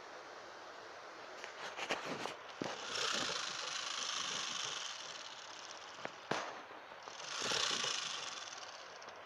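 Crested porcupine in a wire cage trap rattling its raised quills: two long bursts of dry rattling hiss, with scattered sharp clicks and knocks.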